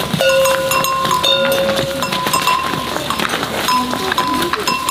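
A simple tune of long, steady held notes at two or three pitches, switching on and off, over the hubbub of a market with scattered clinks and clicks and background voices.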